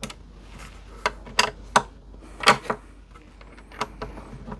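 Hands-on work on an acoustic guitar at the bench: a handful of sharp, irregular clicks and taps, the loudest about a second and a half and two and a half seconds in.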